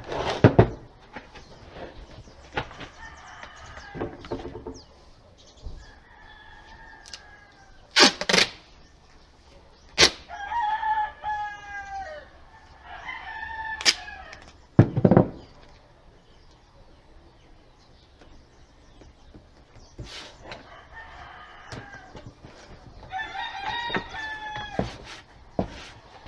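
A rooster crows several times, each crow a long pitched call falling away at the end. Between the crows come sharp rips and knocks, the loudest sounds, from duct tape being pulled off the roll and pressed onto the bottom of a drawer.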